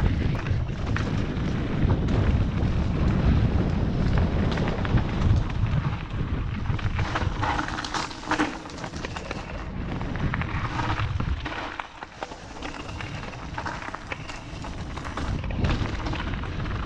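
Wind rumbling on the microphone of a mountain bike riding fast down a gravel trail, with tyres crunching over loose stones and the bike rattling. The wind rumble eases for a moment about twelve seconds in, then builds again.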